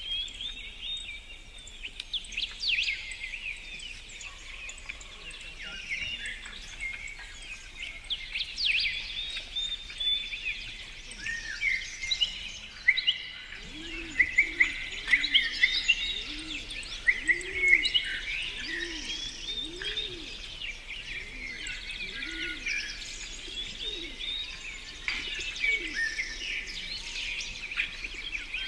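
Outdoor birdsong: several songbirds singing and chirping, with a lower call repeating over and over through the middle.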